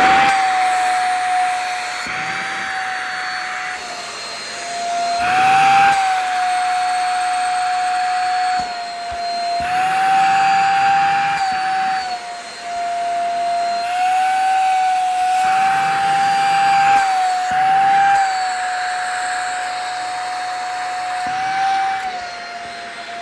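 Vacuum cleaner running, its steady motor whine dipping and rising slightly several times as the nozzle sucks at a shirt's fabric, with recurring bursts of rushing air.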